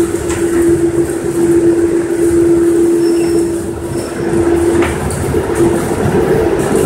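Humphries manlift running: the continuous belt and its drive give a loud, steady mechanical rumble with a constant hum, and a faint click about five seconds in.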